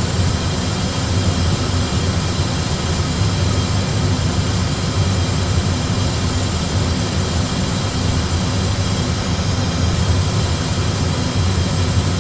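Steady low rumble with a fainter hiss in an Airbus A320 flight simulator cockpit: the simulated airliner cabin noise of engines and airflow while the autopilot flies a descent, unchanging throughout.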